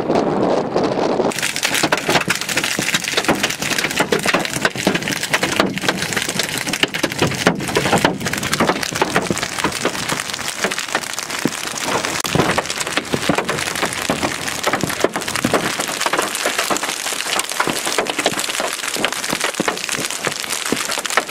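Hail hitting a car and the road: a dense, continuous clatter of many small impacts. It starts suddenly about a second in, after a moment of wind rumbling on the microphone.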